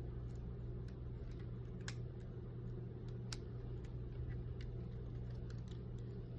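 Small irregular clicks and ticks of repair tools and parts being handled on a phone, over a steady low hum.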